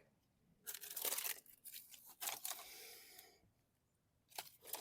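Rustling and crinkling of things being handled and rummaged through, in two spells, followed by a couple of light clicks near the end.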